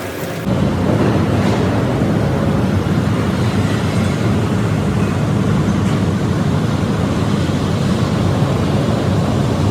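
Loud, steady industrial machinery noise of a steel mill, starting about half a second in, a dense rumble without a clear rhythm.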